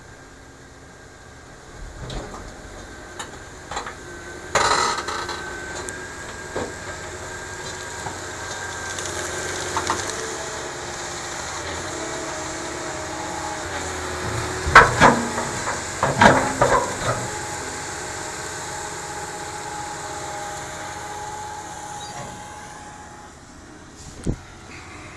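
Case IH Quadtrac tracked tractor's diesel engine working as it pushes soil with a front dozer blade, its pitch shifting up and down as the load changes. Several loud knocks break in, once about four seconds in and in a cluster a little past the middle.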